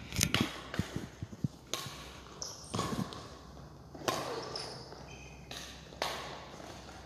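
Badminton rally: sharp racket strikes on the shuttlecock every one to two seconds, each ringing on in the echo of a large hall, with soft footfalls and a few short shoe squeaks on the court.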